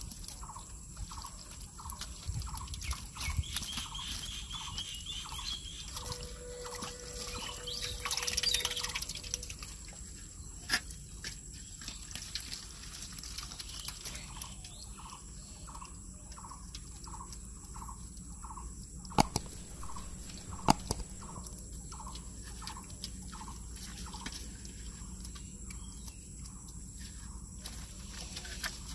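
Water dripping and trickling as a mesh net bag of small catfish is handled in a pot of water, with a short chirping call repeated two or three times a second in the background and two sharp clicks a little past the middle.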